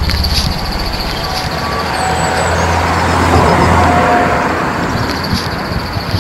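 Vehicle noise: a low rumble with a rushing noise that builds to a peak about three to four seconds in, then eases off, with a few faint whistling tones over it.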